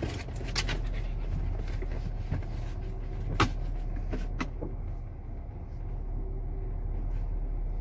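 Car driving, heard from inside the cabin: a steady low rumble of engine and road noise, with light rattling clicks through the first half and one sharp click about three and a half seconds in.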